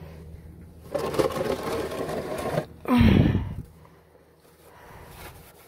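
Cloth rag rubbing and wiping over the oil filter and the metal around it, from about a second in. About three seconds in comes a short, loud rumbling scrape that falls in pitch, then it goes quiet.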